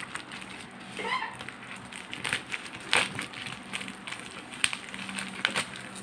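Plastic bubble mailer being handled, crinkling and rustling with irregular sharp crackles.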